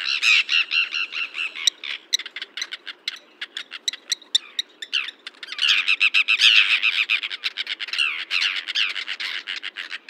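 Common terns calling: a rapid run of short, high-pitched calls, dense at the start, thinning to scattered short calls, then dense again from about halfway through.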